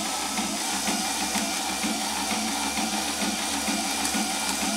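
Fischertechnik robotic arm with a pneumatic hand running, its small electric motors and pneumatic compressor whirring steadily with a fast pulsing while the arm moves and the fingers are actuated one after another.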